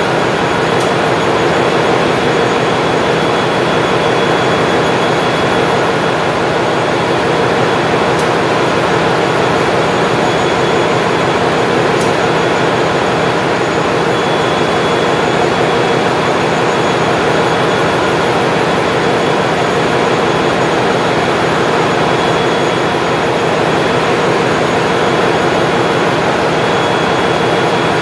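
Loud, steady machinery noise of a ship's engine room: a constant drone with a thin high whine over it that never changes.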